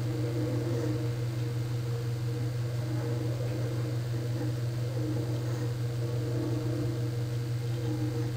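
Servo motors and toothed-belt drives of a small motion-control demonstration rig running at steady speed, giving a steady low hum.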